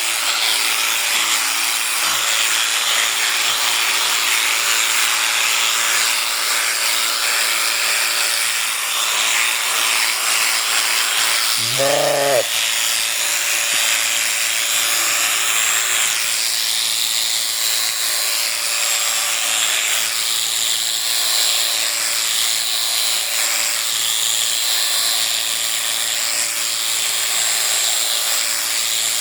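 Electric sheep shears running steadily while a sheep is shorn. A sheep bleats once, briefly, about twelve seconds in.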